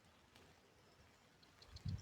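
Near silence outdoors, with a cricket starting a high, rapid chirping trill in the last half second. A low thump just before the end.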